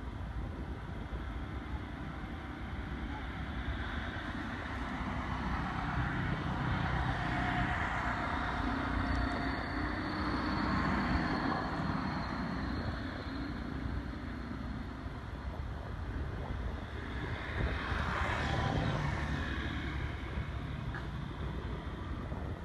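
Passing motor vehicle traffic: engine and road noise swells and fades twice, a longer pass in the first half and a shorter one near the end, over a steady low rumble.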